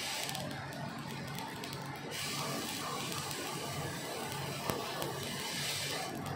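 Stick welding arc crackling and sizzling as the electrode burns along a seam in heavy steel plate, turning harsher and hissier from about two seconds in until near the end. One sharp snap about three-quarters of the way through.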